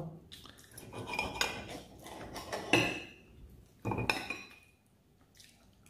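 Metal knife and fork scraping and clinking against a ceramic plate while cutting through egg-topped toast. Two sharper clinks ring briefly, in the middle and a little later.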